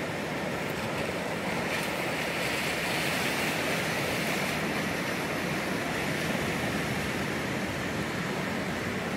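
Ocean surf washing over and around shoreline rocks: a steady rushing wash that swells a little between about two and four and a half seconds in.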